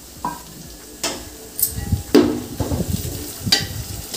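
Masala frying and being stirred in a large metal biryani pot: a light sizzle with a ladle scraping the bottom and knocking against the pot a few times, one knock ringing briefly.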